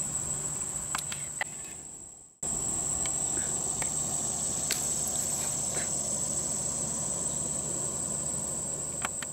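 Steady high-pitched chorus of insects trilling in a late-summer garden, cutting out for a moment about two seconds in, with a few faint clicks.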